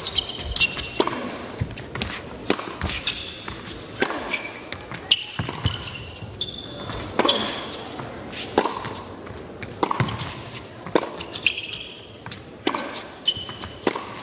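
Tennis ball struck by rackets in a rally and bouncing on the indoor hard court, sharp hits every second or so, with short high squeaks from players' shoes on the court surface.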